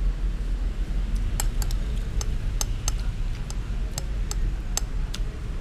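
Metal spoon clinking and scraping against a glass plate while mixing rice: a run of about a dozen sharp, irregular clinks starting over a second in, over a steady low rumble.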